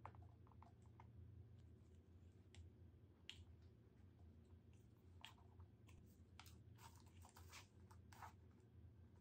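Faint scattered crackles and clicks of hands pressing paper and handling dry straw on a canvas, busier in the second half, over a low steady hum.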